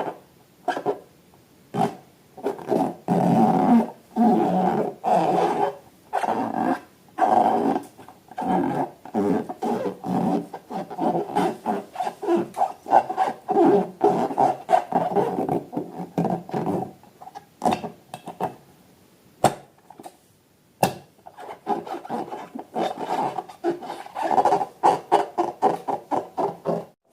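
Rubbery squeaks and squelches in quick, uneven bursts, with sharp clicks between them, from slime and balloons being worked by hand.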